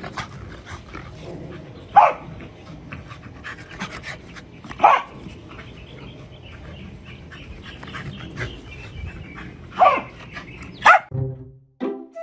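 Corgi giving four short, sharp barks, spread out over several seconds with the last two about a second apart, and panting between them.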